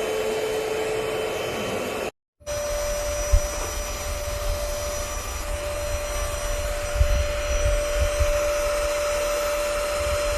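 Cordless stick vacuum cleaner running with a steady motor whine. After a short cut about two seconds in, it runs again at a slightly higher pitch, with low rumbling and a few thumps underneath.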